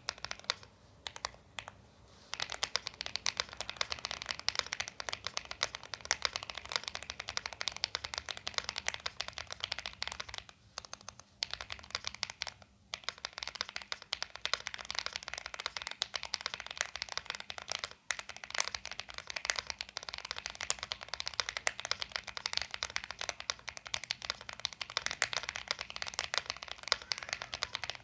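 Mechanical keyboard with Ajazz Banana tactile switches (50 g springs) being typed on: a few single keystrokes, then fast continuous typing with a poppy click on each press, broken by two short pauses.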